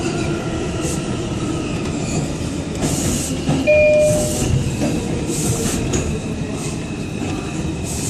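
Inside an R142 subway car running through a tunnel: a steady rumble of wheels on rail, and the traction motors' whine falling slowly in pitch as the train slows. About four seconds in there is a short, loud squealing tone, and brief high squeals and hisses come and go.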